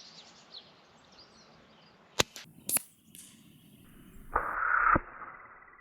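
A .22 AirMaks Katran air rifle fires a JSB Ultra Shock pellet: a sharp crack about two seconds in, then a second sharp crack about half a second later. A rasping noise follows, ending in a click.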